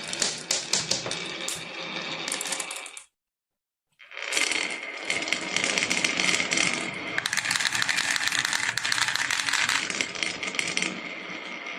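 Marbles rolling and clattering down a marble run track, a dense run of small clicks and rattles. It cuts out for just under a second about three seconds in, then starts again.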